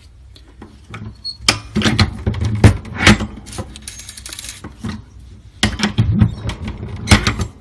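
Metallic clicks and clatter of small button-making parts handled on a Tecre 1-inch button press, in two bunches of sharp clacks, the second near the end.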